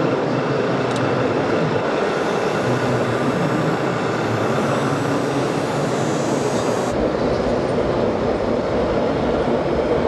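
Steady, dense din of a busy exhibition hall with a mechanical rumble. About seven seconds in the sound changes suddenly: the hiss drops away and a deeper rumble takes over.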